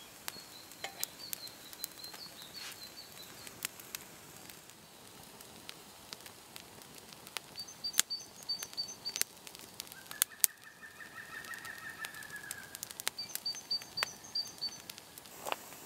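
Kindling fire crackling and popping in sharp, irregular snaps. Several short songs of woodland birds run beneath it, with a trilling phrase about ten seconds in.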